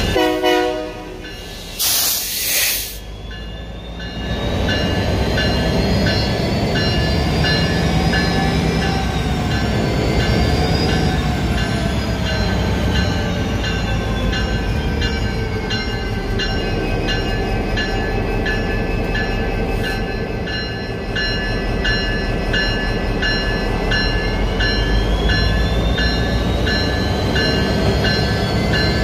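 Diesel freight locomotive running close by, its engine rumbling steadily with a whine that slowly rises and falls, while its bell rings in a steady rhythm. A short burst of air hiss comes about two seconds in.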